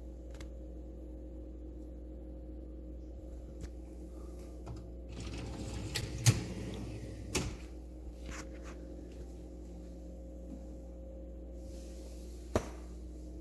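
Scattered clicks and knocks of a dishwasher's interior parts being handled, with a short scraping stretch and the loudest click about six seconds in, over a steady low hum.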